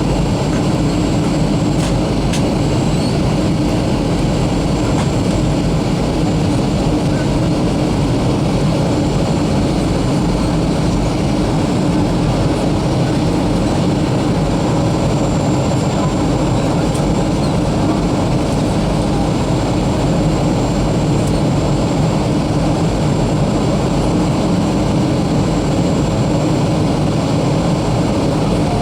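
Steady cabin noise inside a Boeing 737-300 descending toward landing: the constant rumble of its CFM56 jet engines and rushing airflow, with a faint high steady whine above it.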